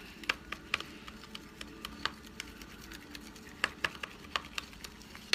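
A utensil clicking and tapping irregularly against a bowl while stirring glue and contact solution into slime.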